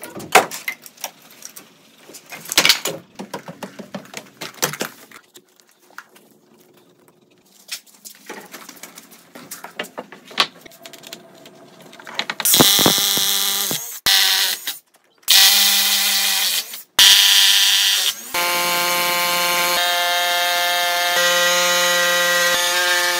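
Scattered sharp knocks and clicks, then a rotary hammer drilling down through a pressure-treated board into a concrete floor. It runs in a few short bursts from about halfway, then steadily through the last few seconds with a strong, even whine.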